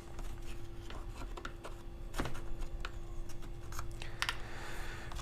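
Small clicks and light scraping of hand work on a chainsaw's primer bulb as it is pried out and its fuel lines are worked off. The sharpest click comes about two seconds in, over a faint steady hum.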